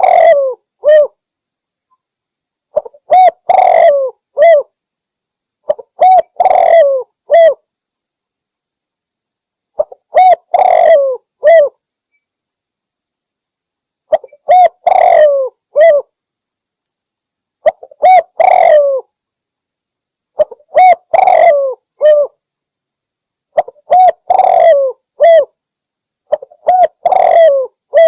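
Spotted dove (Javan derkuku) singing: a loud phrase of several cooing notes, repeated about every three and a half seconds with silence between.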